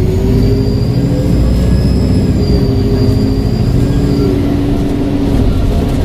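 Alexander Dennis Enviro400H hybrid double-decker bus running, with a steady high turbo whistle over the engine that stops about four seconds in.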